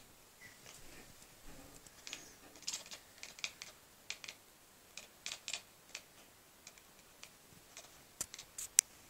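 Tabby kitten chattering at prey: irregular clusters of quick clicks from its jaw and teeth, the excited sound a cat makes when watching birds or feathers. The sharpest click comes near the end.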